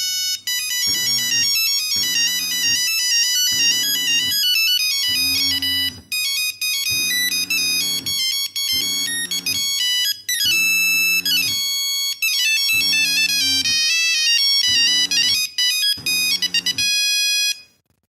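Nokia 3410 mobile phone playing a beeping electronic ringtone melody through its small speaker, with a low pulse about once a second underneath. The tune cuts off suddenly near the end.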